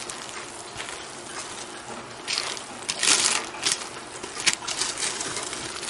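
A plastic slotted spoon scraping and stirring through crumbly slow-cooked cake in a plastic slow-cooker liner, with the liner crinkling. It comes in short, irregular rustling bursts, loudest around the middle.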